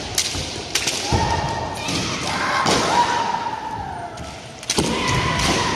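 Kendo sparring: repeated sharp cracks of bamboo shinai strikes and thuds of stamping feet on a wooden floor, mixed with drawn-out kiai shouts from several players.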